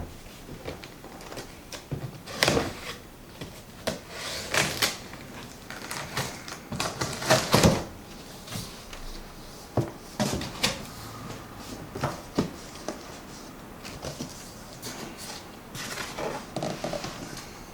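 Cardboard shipping box being opened and unpacked by hand: irregular knocks, clunks and short rustles of cardboard and packing as flaps are pulled open and contents shifted.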